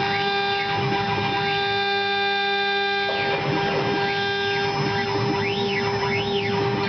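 Small metal-engraving CNC router at work: its 1.5 kW spindle holds a steady hum while the stepper-driven axes whine up and down in pitch with each short move, repeating every half-second or so, with a longer even-pitched run in the middle.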